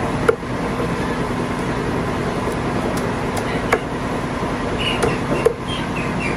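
Heavy cleaver chopping through chicken onto a thick wooden chopping block: a few sharp chops, the loudest just after the start and others about four and five and a half seconds in, over a steady background hum.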